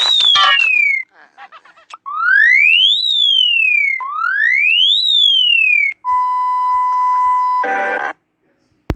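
Electronic alarm tones of a mock emergency-alert (EAS) sequence. A siren-like tone rises and falls in pitch, heard finishing and then twice in full, one whoop every two seconds. It is followed by a steady single-pitch beep lasting under two seconds, which ends in a short burst of noise.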